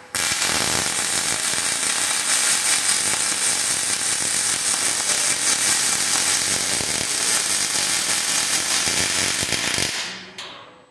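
Welding arc from a KUKA robot's torch running a weld on a steel truss: a steady, dense crackle that starts abruptly as the arc strikes and cuts off about ten seconds in as the arc is broken.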